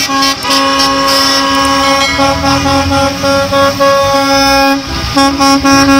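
School bus horn sounding in long held blasts, with a short break about five seconds in.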